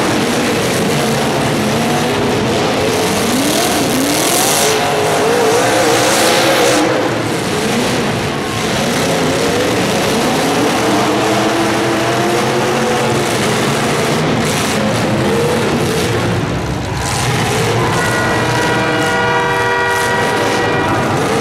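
Vehicle engines revving up and down, their pitch rising and falling. Near the end a loud horn chord of several steady tones joins in, like a train-style air horn.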